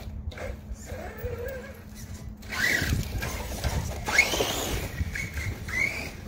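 Redcat Landslide XTE RC monster truck's electric motor whining up and down in pitch as the throttle is worked, with a sharp rising whine about four seconds in as it accelerates, over a low rumble.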